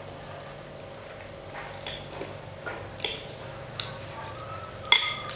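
Metal spoon and fork clinking and scraping on a ceramic plate: a few light clicks, then one sharper ringing clink near the end, over a faint steady hum.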